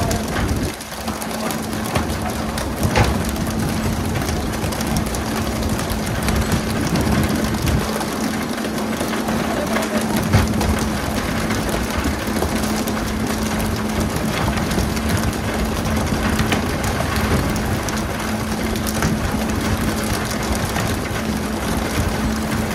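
A boat engine running with a steady hum under a constant rush of water, with a few sharp knocks.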